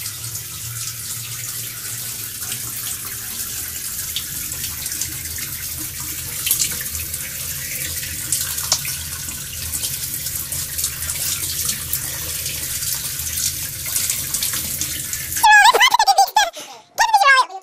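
Shower running: a steady spray of water in a small tiled stall. About fifteen seconds in it cuts off abruptly and a loud, high-pitched voice takes over, its pitch sliding up and down.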